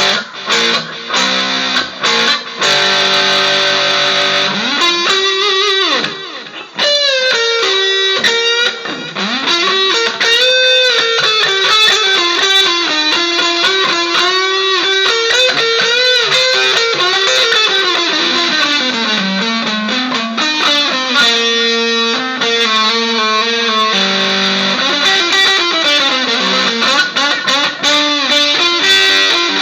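Electric guitar played through a Vox amPlug Classic Rock headphone amplifier with a growling, distorted tone. It plays a single lead melody of long sustained notes with string bends and slides.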